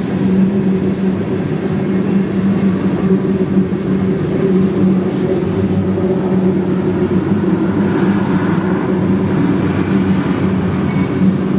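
Freight train of tank cars rolling past at close range: a steady rumble of steel wheels on the rails with a constant low hum.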